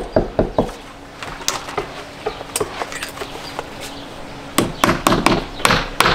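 Hammer driving nails through stucco wire lath into the wall: a quick run of sharp strikes at the start, a few light taps, then steady repeated blows about three or four a second from a little past halfway.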